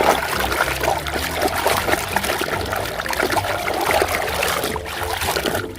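Water running and splashing over a toy vehicle as it is washed clean.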